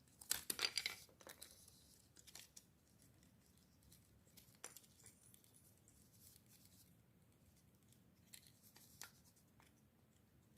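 Faint rustling and light plastic clicks from a flat ribbon cable being wound into the plastic reel of a steering-wheel clock spring (spiral cable), busiest in the first second or so, then only a few scattered single ticks.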